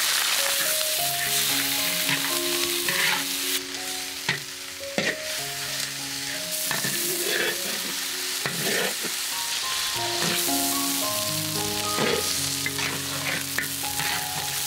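Chicken pieces sizzling as they are stir-fried in a large iron wok, a steady frying hiss with a metal spatula scraping and knocking against the wok many times.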